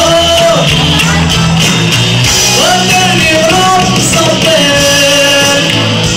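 Live band playing with a singer's voice over keyboards, electric guitar, bass and drums.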